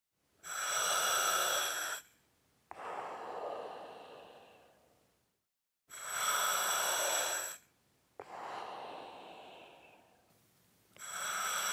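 Slow, deep human breathing, heard as breaths in pairs: a louder breath of about a second and a half, then a softer one that fades away. The pair comes twice, and another louder breath starts near the end.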